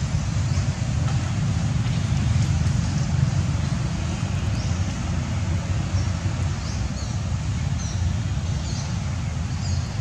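Steady low outdoor rumble with a hiss over it, and a few short high chirps in the second half.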